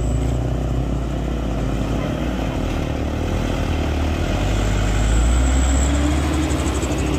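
Diesel engine of a Mitsubishi Fuso Canter truck working hard at high revs as the truck climbs a steep gravel slope and passes close by, growing louder about five seconds in.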